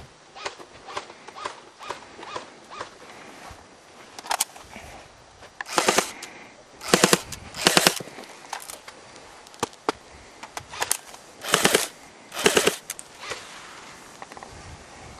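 G3-style airsoft rifle firing short full-auto bursts of rapid shots: three bursts in quick succession about six to eight seconds in, then two more about four seconds later. Fainter single shots crack now and then before the bursts.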